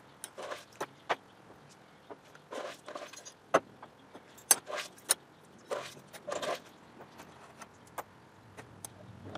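Small metal parts such as bolts, brackets and washers clinking as they are picked out of a vibratory tumbler's bowl and set down on the bench. Irregular sharp clinks come between short rustles of a hand digging through the plastic tumbling media.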